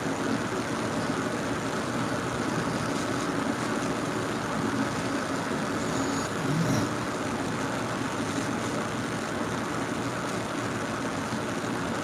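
A sleeping person snoring: a steady low drone, with one short, louder snore just past halfway.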